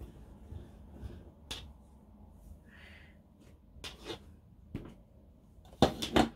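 Cloud slime being pressed and rolled by hand on a tabletop, giving scattered small clicks and taps, with a cluster of sharper knocks near the end.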